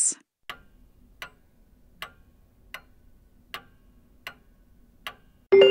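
Clock-ticking sound effect counting down the answer time for a quiz question: about seven even ticks, a little under a second apart. A chime starts near the end.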